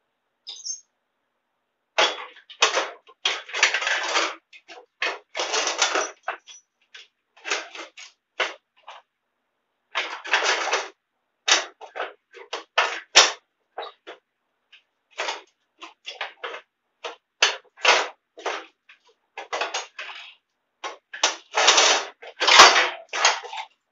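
Irregular metallic clanks, clicks and short scrapes as a garden pulling tractor's clutch assembly (discs and pressure plate) is worked loose and pulled out of the frame, starting about two seconds in.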